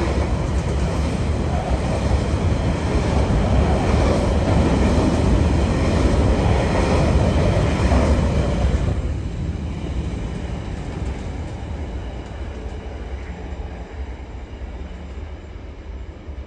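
Empty coal wagons of a freight train rolling past on the rails. The last wagon goes by about halfway through, and the train sound then fades steadily away.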